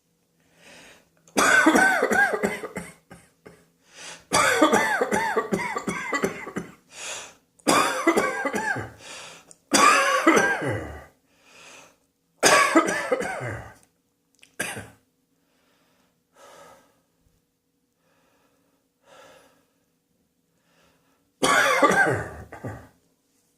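A person coughing in repeated fits: six bouts of rapid coughs, each one to two seconds long, over the first fourteen seconds. A long pause with only faint breaths follows, then one more bout near the end.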